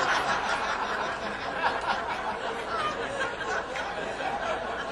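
Audience laughing after a joke's punchline, many voices together, slowly dying away.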